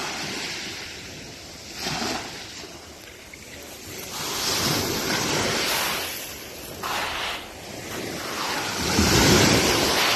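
Ionian Sea waves breaking and washing on the beach, coming in repeated swells of noise, the loudest near the end.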